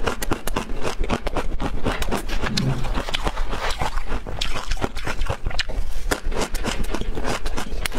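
Close-miked crunching and chewing of a mouthful of bitter-buckwheat 'snowflake rice', a dense run of sharp, irregular crackles several times a second, with a spoon scooping the food from a plastic tub.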